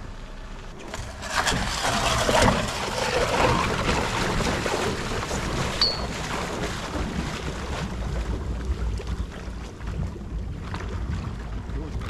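Wind and sea-water noise aboard a small boat at sea, over a low steady rumble. The rushing noise swells about a second in and eases off after a few seconds.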